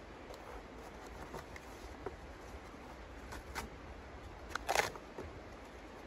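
Small clicks, taps and scrapes as kindling is handled inside the open firebox of a small steel camp wood stove, with a louder, sharper cluster of scraping about three-quarters of the way through, over a steady background hiss.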